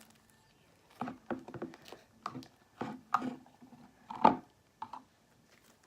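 Wet, runny slime being mixed and squished in a bowl, a string of irregular squelches and sticky clicks, the loudest about four seconds in. The slime is still liquidy and chunky after more activator was added.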